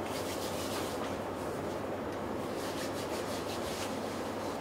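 Soft rubbing over steady room noise: hands pressing and shaping a piece of tuna nigiri.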